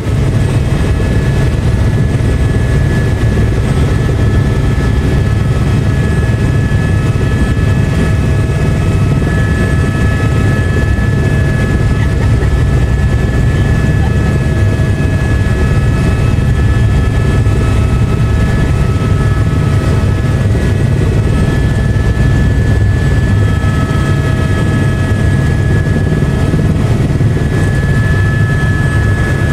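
Helicopter in flight, heard from inside the cabin: a loud, steady low thrum of the rotor with several steady high whining tones from the drivetrain above it.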